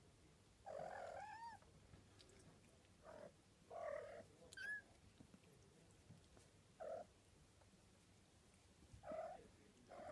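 Kittens mewing: several short, high calls a second or two apart, the longest about a second in.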